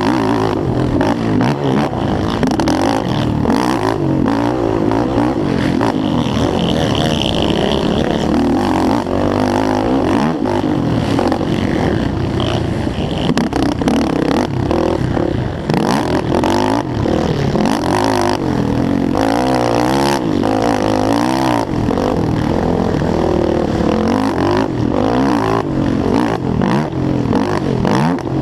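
Yamaha YFZ450R racing quad's single-cylinder four-stroke engine revving hard, its pitch climbing and dropping again and again as it accelerates, shifts and backs off around the motocross track, with frequent short knocks and rattles.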